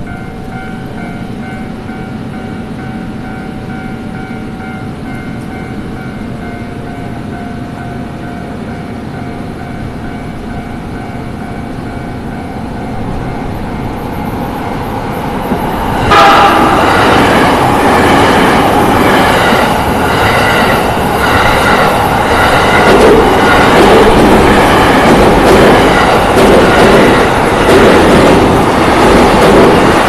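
Railway level-crossing warning bell ringing repeatedly. About halfway through, an electric commuter train suddenly passes close by at speed, and its loud rush and rhythmic wheel clatter over the track fill the rest.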